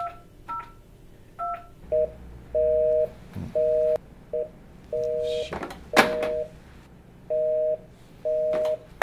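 Desk telephone keys beeping three times as a number is dialled, then the line's busy signal beeping on and off in half-second pulses. There is a sharp click about six seconds in.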